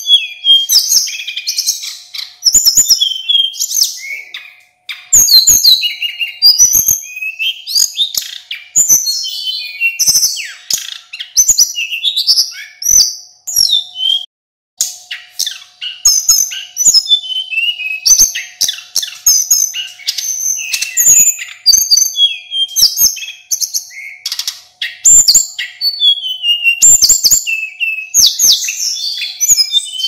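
A male sulingan gunung flycatcher singing in full voice ('full gacor'). It pours out a rapid, varied stream of high chirps, slurred whistles and trills with almost no break, pausing only briefly about halfway through.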